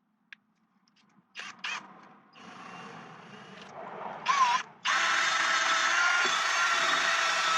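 Electric drill with a brush attachment scrubbing the rear brake hub clean. A couple of clicks come about a second and a half in, then a brief spin-up, and from about five seconds in it runs steadily with a high whine.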